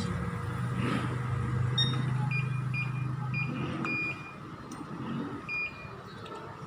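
Multimeter continuity buzzer giving about five short high beeps as the probes are touched to the laptop mainboard while hunting a short. A low steady hum runs underneath and stops about four seconds in.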